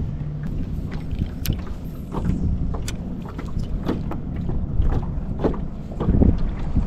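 Wind buffeting the microphone over a steady low rumble, with small waves slapping against a jon boat's hull in scattered knocks and splashes.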